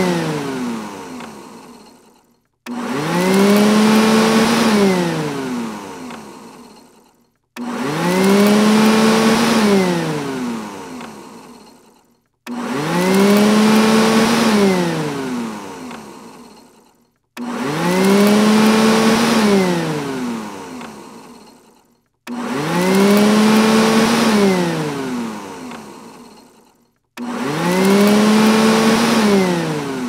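Robot vacuum cleaner's motor switching on with a rising whine, running for about two seconds, then winding down and fading out. The same short cycle repeats about every five seconds.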